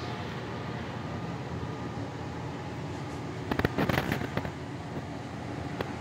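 Gas furnace motor running with a steady mechanical hum. About three and a half seconds in, a cluster of sharp crackling clicks lasts roughly a second.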